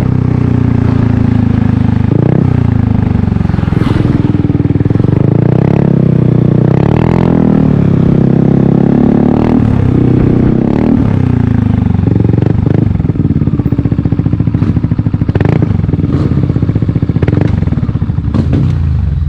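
Yamaha Aerox 155 Connected's single-cylinder 155 cc scooter engine running through an aftermarket Corse Italian Performance carbon slip-on silencer. It idles and is revved in short throttle blips, about seven times.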